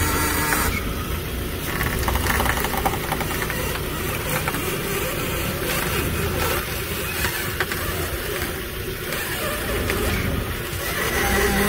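Ford Escape engine idling while the front wheels are steered from side to side on the ground, to draw out a suspension squeak. On this passenger side the worn lower control arm ball joint, its rubber boot already torn, makes only a little noise.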